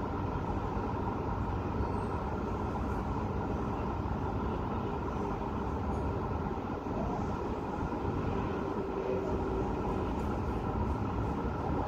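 Steady hum of city road traffic, with cars passing on the roads below.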